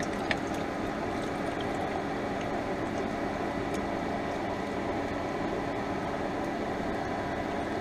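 Spicy vegetable juice poured steadily from a bottle into a pan of canned vegetables, over a steady fan hum with a faint low tone.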